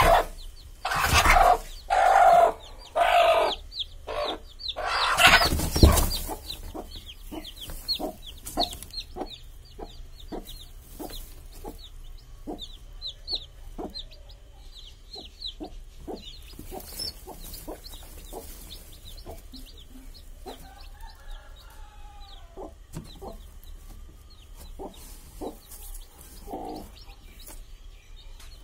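Broody hen on a nest of eggs and newly hatched chicks giving several loud harsh calls in the first six seconds, then settling into soft, rapid clucking while the chicks peep, high and quick, over it.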